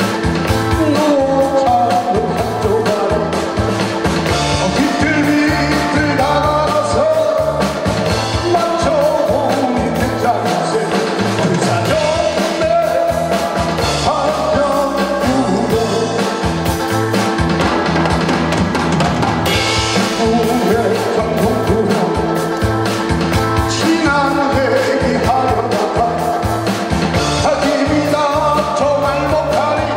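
A man singing a Korean pop song live into a handheld microphone over a recorded backing track with a steady drum beat.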